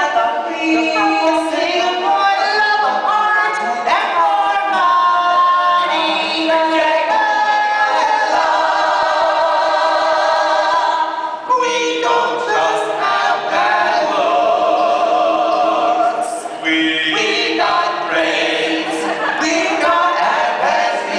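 Four-voice a cappella group singing unaccompanied, several voices in harmony, with a brief break about eleven seconds in.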